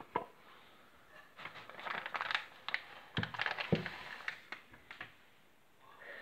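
Close rustling and crinkling with scattered quick clicks, and three sharper knocks: one right at the start and two a little past the middle, half a second apart.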